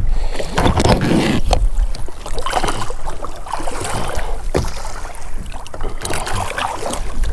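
Water sloshing and splashing at a boat's side as a spotted seatrout is held in the sea and released, with wind rushing over the microphone.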